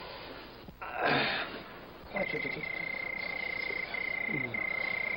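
Night-time ambience: a steady high-pitched animal trill starts about two seconds in and runs on with brief gaps. Just before it, a short burst of rushing noise about a second in is the loudest sound.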